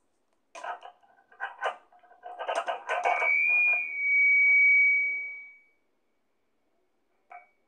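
Walkie-talkie sounds: a few short bursts of crackle, then a steady high beep lasting about two and a half seconds, and one short chirp near the end.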